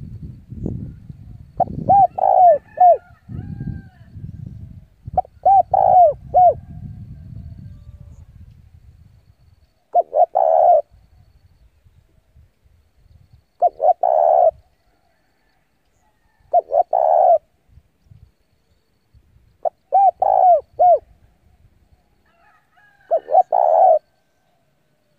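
Spotted dove cooing: seven short phrases of a few notes each, one every three to four seconds. A low rumbling noise sits under the first few calls and fades out.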